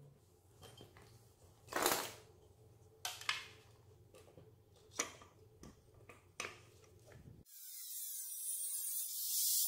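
A few knocks and clicks as the metal frame of a kick scooter is handled. About seven and a half seconds in, an angle grinder starts cutting into the frame with a loud hiss that grows louder.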